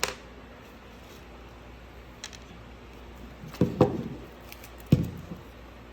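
Handling noises while working a hook and fishing line by hand: a sharp click at the start, then a few scattered knocks and clicks, the loudest around four and five seconds in.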